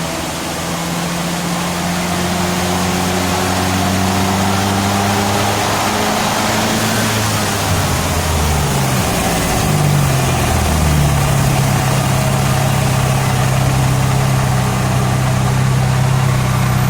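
VW Gol 1.0 16v turbo engine falling back from about 100 km/h in fifth to idle over roughly ten seconds, then idling steadily. Under it is a steady rushing noise from the raised front wheel coasting in neutral, with a slight noise from a worn wheel bearing that is not yet severe.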